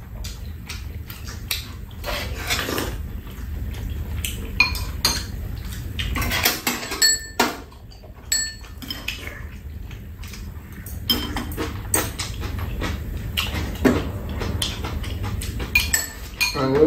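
Metal spoons and chopsticks clinking against ceramic bowls during a meal: a steady run of small clicks, a few of them ringing briefly.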